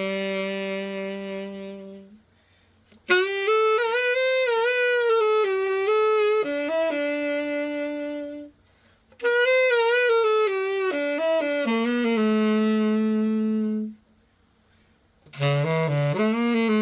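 Selmer Mark VI tenor saxophone played in short phrases with silent breaks of about a second between them, held notes wavering with vibrato, as a play test of the instrument after its precision setup.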